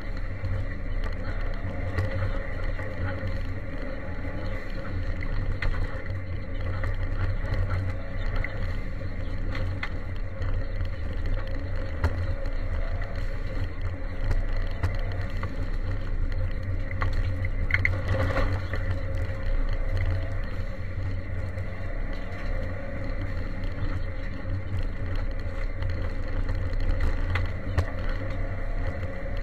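Ford Sierra Cosworth 4x4 rally car heard from inside, its turbocharged 2.0-litre four-cylinder engine running hard on a gravel stage, with tyre and gravel noise under a steady low drone that changes little in pitch.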